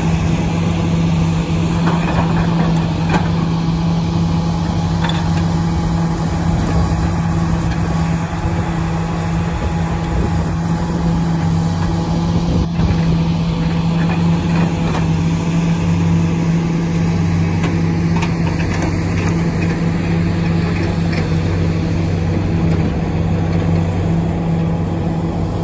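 Diesel engines of heavy earthmoving machinery (excavators and dump trucks) running, a steady low drone, with a few short knocks about 2, 13 and 18 seconds in.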